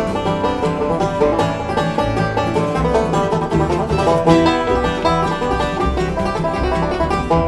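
Bluegrass string band playing an instrumental passage with no singing: banjo picking with guitar and mandolin over upright bass.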